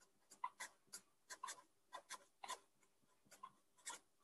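Felt-tip pen writing capital letters on paper: a run of short, faint strokes, one after another.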